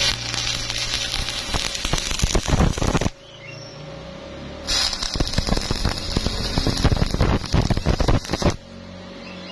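Stick (shielded metal arc) welding on steel rebar: the electrode's arc crackling densely in two runs of about three and four seconds, broken off for about a second and a half between them.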